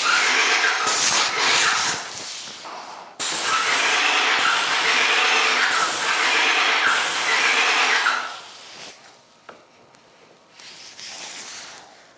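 Airless paint sprayer spraying: a loud steady hiss from the spray gun in a short pass, a brief break, then one long pass that stops about eight seconds in. After that only faint small knocks are heard.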